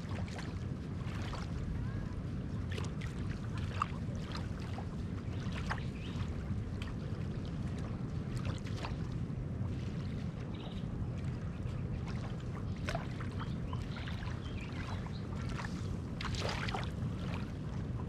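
Small ripples from a calm sea lapping on a sandy shore: many soft, brief splashes and trickles over a steady low rumble.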